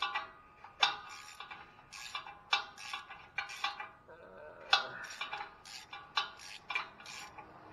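Ratchet wrench turning a loosened catalytic converter flange bolt. It gives short bursts of metallic clicking and clinking, repeated at uneven intervals about every half second to a second.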